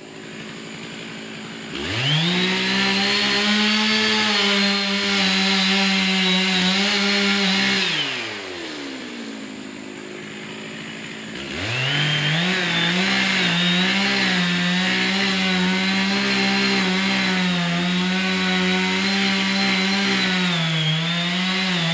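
Stihl MS660 two-stroke chainsaw revving from idle to full throttle about two seconds in and cutting steadily. It drops back to idle for a few seconds near the middle, then revs up again and cuts at a steady high pitch with slight dips.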